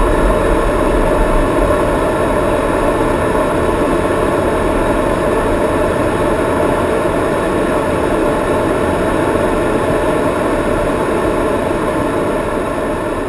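Steady flight-deck noise inside a C-17 Globemaster III in flight: an even, loud rush of airflow and jet engine noise with a few faint steady tones running through it, beginning to fade near the end.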